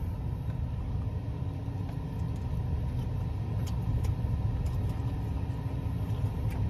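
A steady low rumble, like a motor running, with a few faint short clicks on top, typical of someone chewing close to the microphone.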